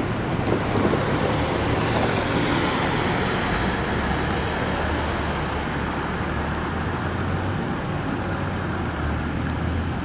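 Steady road traffic noise of cars passing on a multi-lane street.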